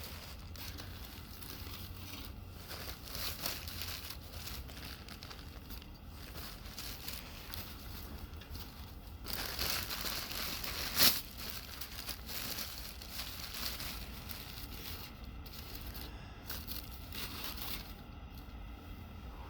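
Wood fire crackling and popping inside a homemade bucket wood stove, with one sharp, loud pop about eleven seconds in.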